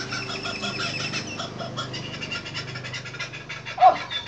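Laughing kookaburra calling: a long run of rapid chattering notes, with a louder short call near the end.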